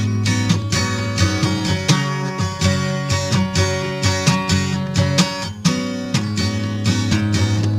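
Acoustic guitar strummed steadily in a stretch with no singing.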